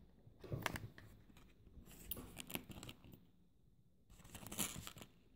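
Small clicks and scraping of lock pins and springs being worked out of a padlock's plug, in three short bursts about half a second in, around two seconds and around four and a half seconds.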